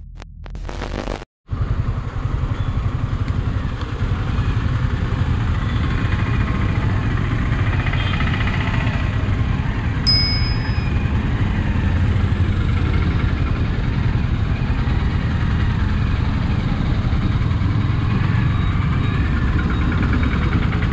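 Yamaha motorcycle engine idling steadily amid town traffic. A brief high electronic ding sounds about ten seconds in.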